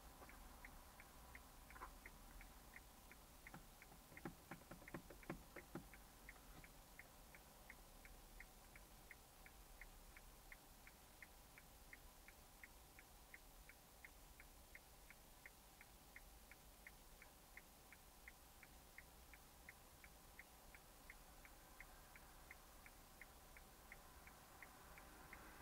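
Faint, steady ticking of a car's turn-signal indicator inside a stationary car, about two and a half ticks a second. A short flurry of louder, irregular clicks comes about four to six seconds in.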